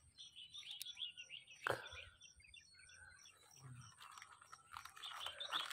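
Hands rustling through wet cabbage leaves, parting them, with one sharp snap a little under two seconds in and more rustling near the end. Behind it, faint bird chirps and a small chirp repeating about three times a second.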